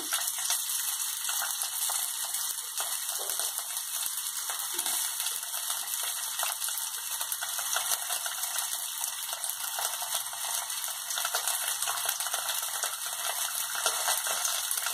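Semolina (suji) batter sizzling steadily in hot oil in a nonstick frying pan, an even hiss, with faint soft sounds of hands pressing filling onto it.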